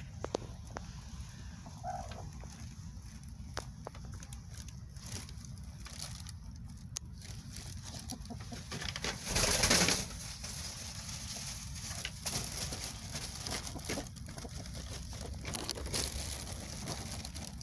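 Rustling and handling at a broody black silkie hen's nest as a hand works under her, through feathers and nest litter, with scattered small clicks. The rustle is loudest in one swish about halfway through. There is a brief bird call about two seconds in.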